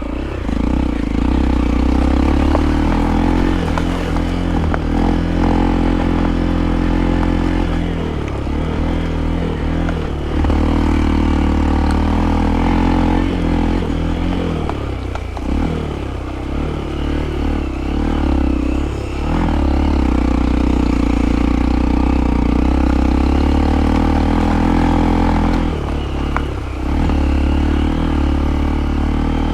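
Hero Impulse's single-cylinder engine running steadily under load through mud, the revs dropping and picking up again a few times, with some rattling from the bike.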